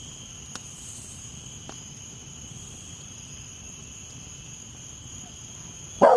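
Steady high chorus of night insects such as crickets. Right at the end a dog breaks in with a loud bark.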